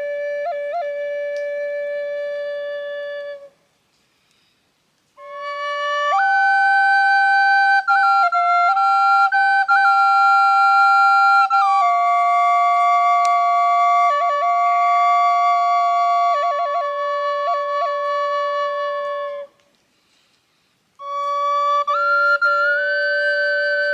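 Native flute playing a slow melody of long held notes, ornamented with quick flutters between notes. The phrases break off twice, about three and a half seconds in and again near twenty seconds, for a short pause.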